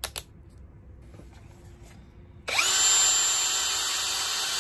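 A short click, then about two and a half seconds in a cordless drill/driver's motor starts, rises briefly in pitch and runs at a steady speed with a steady whine.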